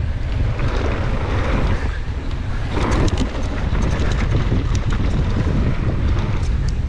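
Wind buffeting the microphone of a camera riding on a downhill mountain bike at speed, over tyres rolling on loose dry dirt and gravel. Scattered sharp clicks and rattles come from the bike's chain and parts jolting over the rough track.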